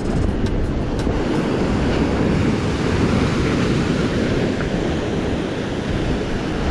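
Ocean waves surging and breaking over a rock ledge, a loud, continuous rush of white water that swells about three seconds in, with wind buffeting the microphone.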